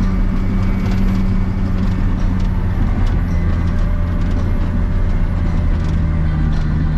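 Cat D7 Next Gen bulldozer's diesel engine running steadily under load while it works snow, with a slight shift in the engine note about three seconds in.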